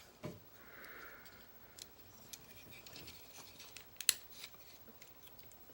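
Light clicks and handling of a plastic toy figure, with one sharper click about four seconds in.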